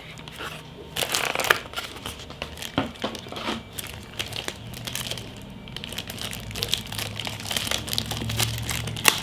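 Plastic packaging crinkling and crackling in irregular bursts as the security camera is unwrapped and handled, over a faint steady low hum.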